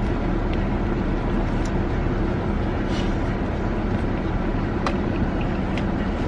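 A car running: a steady low engine hum with road noise, and a couple of light clicks.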